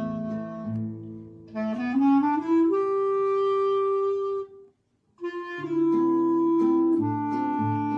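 Clarinet and acoustic guitar playing a duet. The clarinet climbs in a quick run to a long held note, the music stops for about half a second, then resumes with held clarinet notes over plucked guitar bass notes.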